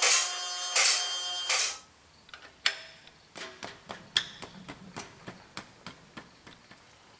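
Two-post vehicle lift raising the truck: its motor hums steadily while the safety locks clack about every 0.7 seconds, and it stops about two seconds in. After that, scattered light metallic clicks and taps come from a wrench working the oil drain plug.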